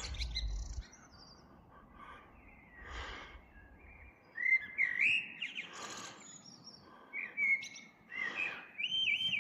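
Songbirds singing in the early-morning dawn chorus: whistled phrases that glide up and down, mixed with short high chirps, with a few brief bursts of noise between them.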